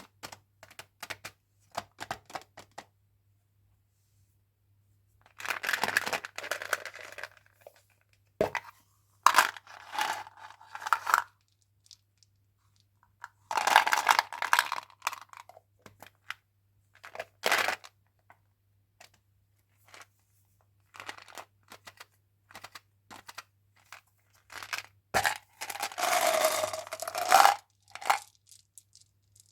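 Chewing gum packaging being opened by hand: wrappers tearing and crinkling in four longer bursts, between many sharp clicks and taps as the pack and pieces are handled.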